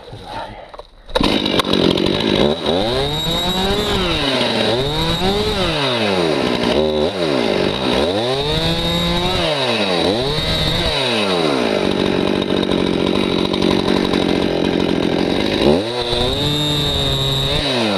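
Stihl MS261 C-M two-stroke chainsaw cutting a fallen log. It starts up about a second in, revs up and down several times, holds a steady high speed for several seconds through a cut, then revs again near the end.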